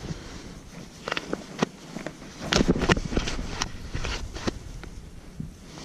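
Close handling of a landed silver (coho) salmon held down on wet sand while the fly is worked out of its jaw: an irregular run of clicks, slaps and rustles from hands, fish and jacket, busiest about two and a half to three seconds in.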